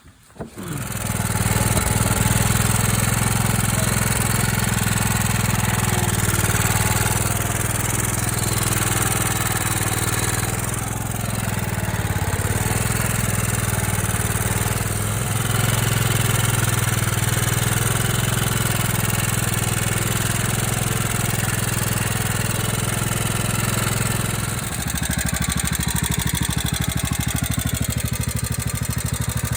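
Riding lawn mower engine starting and catching within the first second, then running steadily; about 25 seconds in its note changes and it carries on running.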